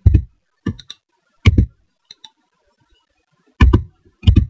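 Computer mouse and keyboard clicks in irregular clusters of one to three sharp clicks.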